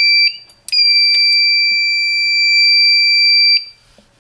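Fire alarm control panel's built-in buzzer sounding a steady high-pitched tone on power-up: a short beep, then after a brief gap a longer one of about three seconds that cuts off abruptly, as the panel initializes.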